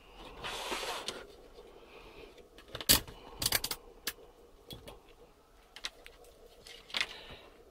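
A short rustle, then a scatter of sharp clicks and knocks, the loudest about three seconds in with a quick cluster just after, as a multimeter and its test leads are handled.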